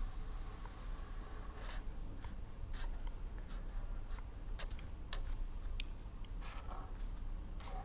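A pen writing and drawing: a dozen or so short scratchy strokes and light taps, with pauses between them, over a steady low hum.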